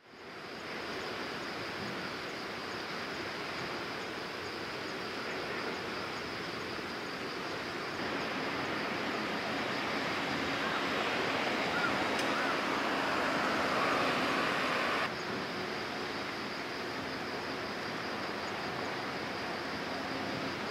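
Outdoor waterside ambience: a steady wash of wind and water noise with a thin, steady high-pitched tone over it. It steps louder about eight seconds in and drops back abruptly about fifteen seconds in.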